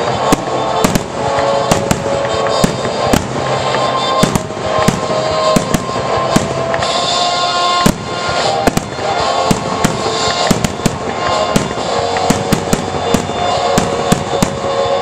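Fireworks display: a rapid, irregular string of sharp bangs and crackles, several a second, over music playing throughout.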